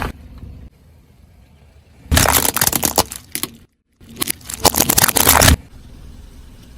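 Objects being crushed under a car tyre: two bursts of dense crunching and cracking, each about a second and a half long, the second starting abruptly after a short dead gap.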